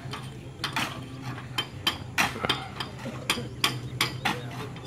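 Sharp metal knocks and clanks, about a dozen at an uneven pace, from crew working on metal stage and truss parts.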